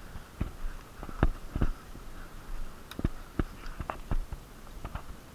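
Scattered, irregular knocks and clicks, a few sharper ones about a second into it and again around three seconds in, typical of an airsoft player's footsteps and gear moving.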